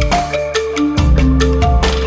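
Background music: a bright mallet-percussion melody in the manner of a marimba, over a bass line and a steady beat.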